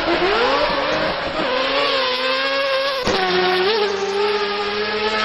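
Mazda RX-7's four-rotor rotary engine at high revs, the pitch swinging up and down at first. About three seconds in there is a sharp crack and the pitch drops, as on a quick upshift. The engine then holds a high, nearly steady pitch.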